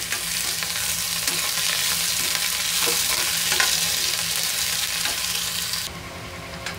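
Chopped onions and green chillies frying in hot oil in a kadhai, a loud steady sizzle, stirred with a metal spatula that clicks now and then against the pan. The sizzle drops off sharply near the end.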